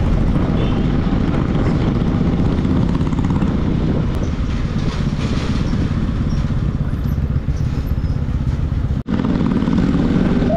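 Motorcycle engine running steadily under way, with road and wind noise; the sound cuts out for an instant about nine seconds in.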